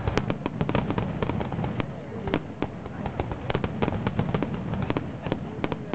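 Fireworks display: a dense, irregular run of sharp pops and small bangs from bursting aerial shells and crackling stars.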